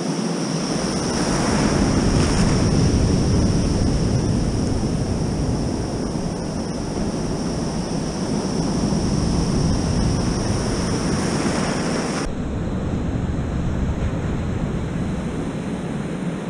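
Breaking surf and whitewater rushing close around the camera at water level, with a heavy low rumble of water and wind on the microphone. About twelve seconds in it cuts to a steadier wash of surf with wind on the microphone, heard from the beach.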